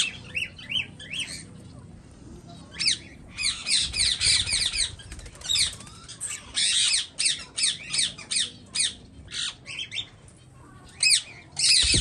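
Small cage birds chirping and squawking: runs of short, high, arched notes in quick succession, broken by gaps of about a second.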